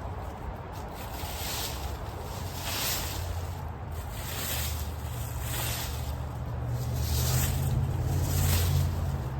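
Rake strokes scraping through dry leaves, about one swish a second, over a low rumble of wind on the microphone that grows stronger in the second half.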